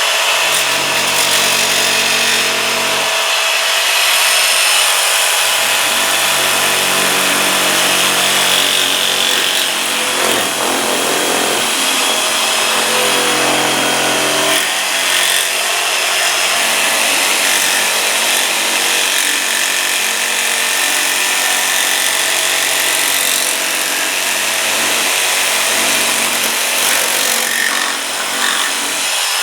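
Handheld jigsaw with a fine metal-cutting blade cutting through plexiglass backed by quarter-inch plywood: a continuous buzzing saw noise, its motor pitch wavering as the load changes.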